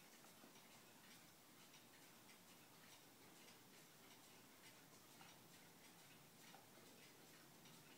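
Near silence: room tone with faint, irregular light ticks.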